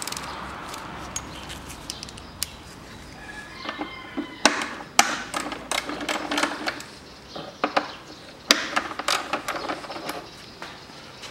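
Irregular clicks and knocks of a socket wrench and the plastic upper timing-belt cover as its bolts are undone on a VAZ-2110's 1.5-litre 16-valve engine, busiest in the second half.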